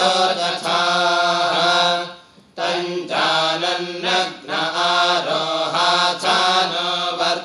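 A group of young men chanting Sanskrit Vedic mantras in unison, the reciting pitch stepping up and down between a few notes. They break off for a short breath a little after two seconds in, then resume.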